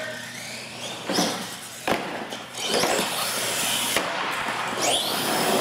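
Radio-controlled monster truck running on a concrete floor: high-pitched motor whine that rises in pitch near the end, tyres hissing and scrubbing, and a sharp knock about two seconds in as the truck hits the floor.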